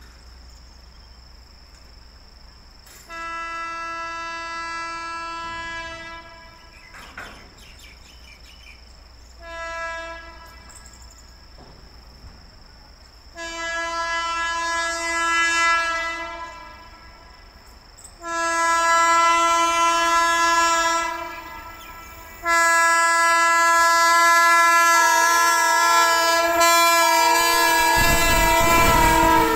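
Electric locomotive's air horn sounding five blasts as the passenger train approaches: four shorter ones, then a long loud one lasting about seven seconds, joined by a second pitch partway through. Near the end the deep rumble of the train arriving comes in under the horn.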